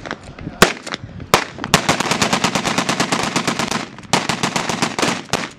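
Gun salute: three single rifle shots in the first two seconds, then a rapid string of bangs at about ten a second for some two seconds, a brief break, and a second string of about a second.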